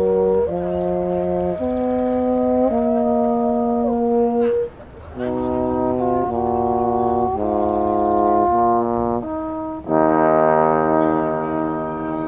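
Brass instruments, a trombone among them, playing slow held chords that change about once a second, with a brief break a little under five seconds in and a fuller, louder chord near the end.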